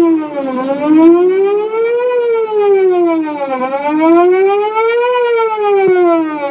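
Whelen WPS 4008 electronic outdoor warning siren sounding a wail in a test, its pitch sweeping smoothly up and down about every three seconds while its speaker head rotates.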